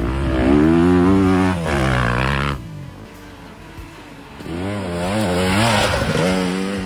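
Dirt bike engines revving up and down through the gears as they ride along a sandy trail. A loud run of rising and falling revs drops away about two and a half seconds in. Another run builds up from about four and a half seconds in and fades near the end.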